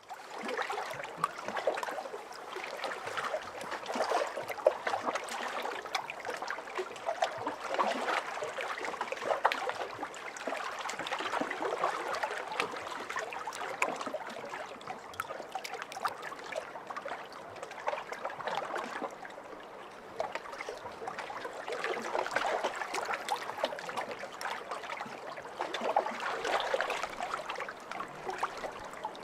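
Pond water moving steadily: a dense patter of small splashes and drips that swells and eases every few seconds.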